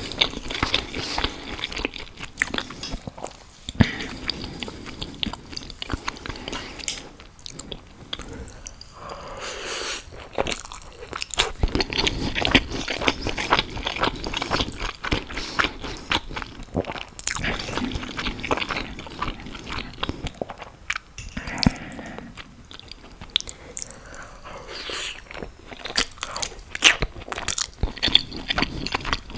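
Close-miked eating sounds: a person biting and chewing crunchy food, with many irregular crackles and crunches throughout.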